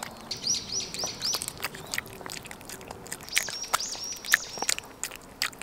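Songbird singing: a quick run of about five repeated high chirps, then a second, more varied run of chirps between about three and a half and five seconds in. Scattered light clicks run underneath.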